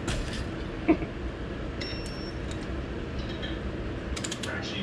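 Metal parts of a motorcycle front fork being handled and worked with hand tools. A single sharp metal knock comes about a second in, and light clicks follow near the end, over a steady low hum.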